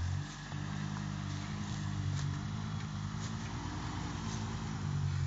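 Lifted off-road pickup truck's engine revving up at the start, then running hard under load as the truck crawls up a rutted, rocky dirt slope, its pitch wavering slightly.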